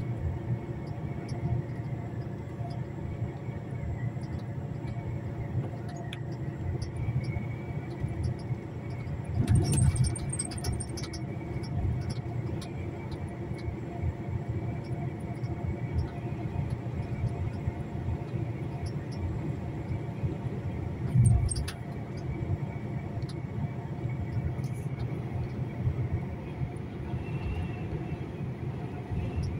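Heavy truck under way, heard from the cab: a steady engine and road drone, with two louder jolts, one about a third of the way in and a shorter one about two-thirds of the way through.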